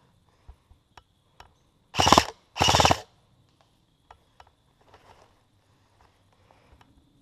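Airsoft HK416 replica rifle firing two short full-auto bursts in quick succession, about two seconds in. Faint rustles and clicks of dry leaves come before and after.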